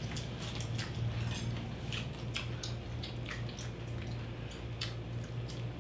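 Scattered soft wet clicks and squishes of whole roast pig (lechon) being pulled apart by hand and eaten, over a low steady hum.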